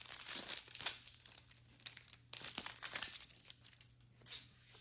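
Crinkling and tearing of a mystery-ball toy's plastic wrapper as it is pulled open by hand, a run of quick crackles that is loudest in the first second.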